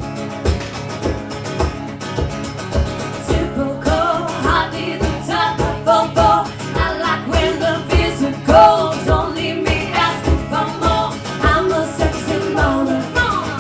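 Live band music: guitar over a steady low beat of about two thumps a second, with singing coming in about four seconds in.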